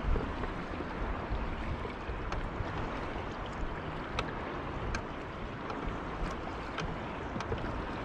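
Strong wind buffeting the microphone in an uneven low rumble, over choppy water lapping against the boat, with a few faint sharp ticks scattered through.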